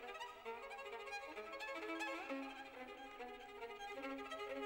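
Background music: a violin playing a melody.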